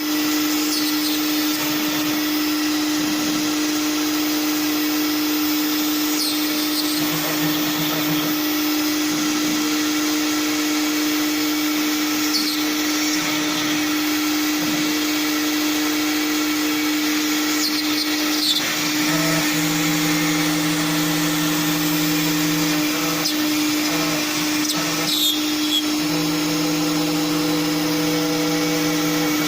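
A CNC router's spindle runs steadily while it cuts a flat part, giving a constant whine over a noisy hiss. Lower tones start and stop every few seconds as the machine changes its moves.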